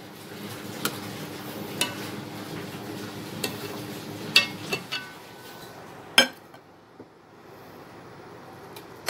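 Metal ladle clinking and scraping against a cooking pot as a piece of simmered beef is lifted out of the broth to check whether it is tender. There are a few light clinks over a low steady background noise that drops off after about five seconds, and one louder knock about six seconds in.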